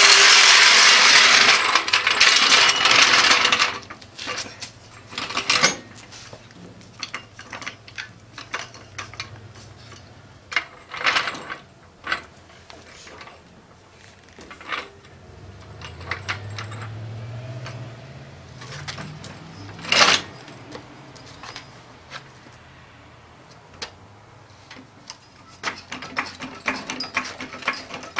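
A loud rushing noise for the first three seconds or so, then scattered sharp metal clicks and clanks as the car is jacked up. A low hum rises in pitch for a few seconds around the middle.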